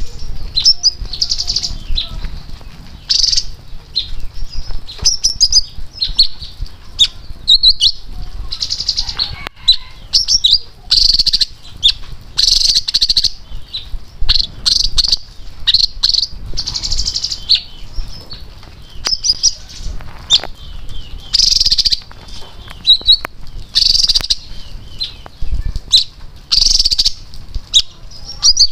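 Caged leafbird singing a fast, chattering song: short bursts of high, warbling phrases every second or two, with brief pauses between them.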